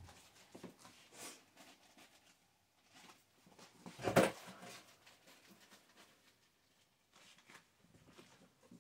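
Faint scattered rustling and clicks of handling noise, with one louder short knock about four seconds in.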